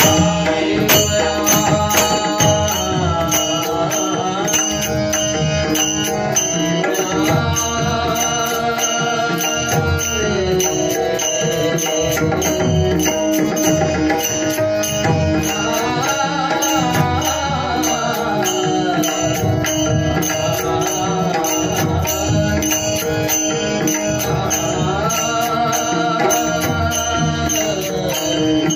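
Indian devotional bhajan: a male voice sings long phrases that glide up and down through a microphone over a steady held drone, with a drum and small brass cymbals keeping a steady beat. It is the closing piece in raga Bhairavi.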